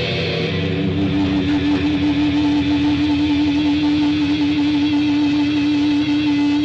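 Electric guitar: ringing chords give way, about a second in, to one long held note with a steady wavering vibrato.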